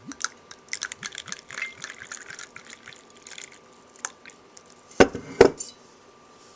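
A spoon stirring a hot drink in a cup, clinking quickly and lightly against the sides as the liquid swirls, followed by two louder sharp clinks near the end. The drink is a butter, brown sugar and spice mix dissolving in boiling water.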